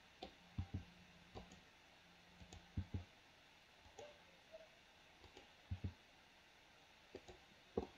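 Computer mouse buttons and keyboard keys clicking: about a dozen quiet, irregular clicks, with a faint low hum coming and going in the first few seconds.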